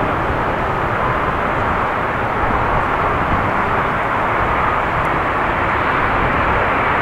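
Twin-engine Airbus A330 on short final with gear down, its jet engines a steady noise with a faint whine, growing slowly louder as the aircraft comes closer.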